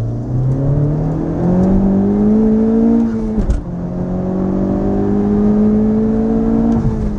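Honda Civic Type R's turbocharged 2.0-litre four-cylinder, breathing through a Mishimoto cold air intake, accelerating hard: revs climb for about three seconds, drop sharply at a gear change with a short whoosh from the recirculating blow-off valve, then climb again more slowly and fall away near the end.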